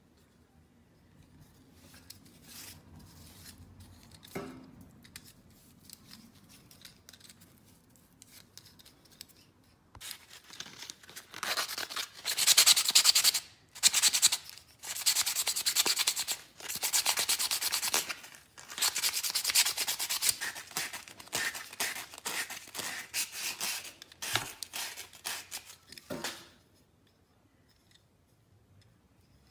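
Sandpaper rubbed by hand over a perforated plastic sprinkler-head tube. It comes as a run of rapid scraping strokes with brief pauses, starting about a third of the way in and stopping near the end.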